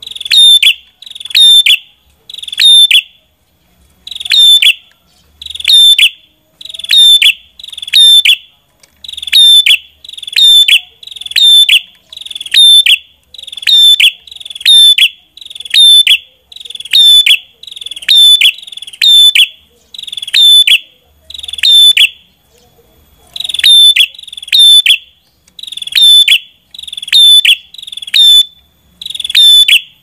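Ashy tailorbird (prenjak kepala merah) calling: a loud, sharp, high note repeated about once a second, with a few short pauses.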